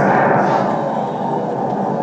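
A song from a live stage musical: voices singing over musical accompaniment, echoing in a hall.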